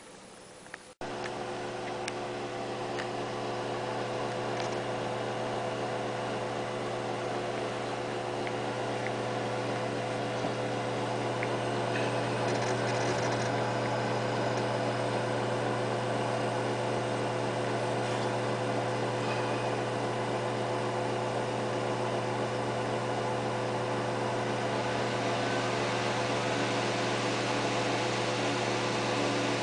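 Fans of a running desktop PC, the Zalman CNPS9500 LED CPU cooler fan among them, giving a steady hum with a low drone and several steady tones. The hum starts abruptly about a second in.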